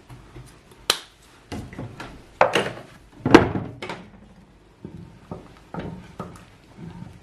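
Kitchen utensils being handled at a cooking pot: a sharp click about a second in, then a run of knocks and clatters, the loudest a little past three seconds, then a few softer taps.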